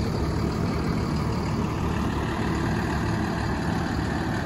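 A 6.7-litre Cummins six-cylinder diesel idling: a steady, even low rumble.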